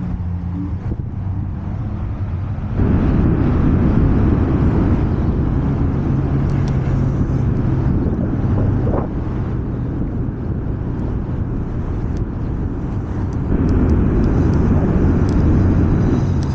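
Wind and road noise on the microphone of a rider on an electric scooter, with a steady low hum underneath. The rush gets louder about three seconds in, eases off around the middle, and picks up again near the end.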